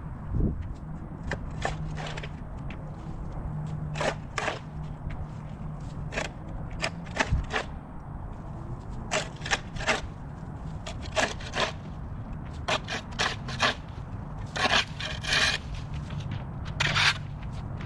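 Dozens of short, irregular scraping strokes over a low steady hum.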